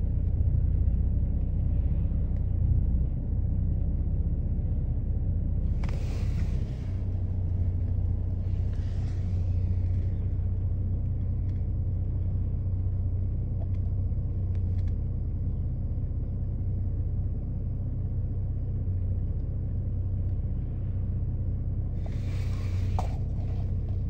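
Steady low rumble with a faint hum. Three short hissing swells come through, about six seconds in, around nine seconds, and near the end.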